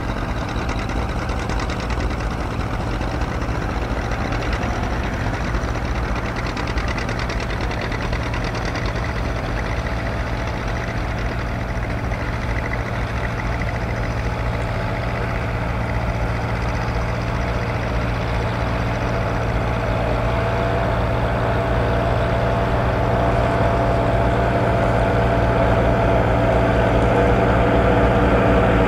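Antique farm tractor engine running steadily under load while pulling a plow through the soil. It grows gradually louder as the tractor comes closer.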